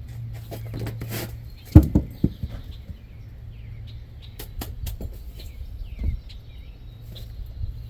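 Three sharp knocks in quick succession about two seconds in and another knock around six seconds, from hands-on work on a sawmill, over a steady low hum. Birds chirp faintly in the middle.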